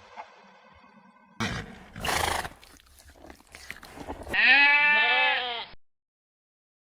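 Goat bleating once, a long wavering call that falls in pitch near the end, after two short rough noises. The sound then cuts off suddenly.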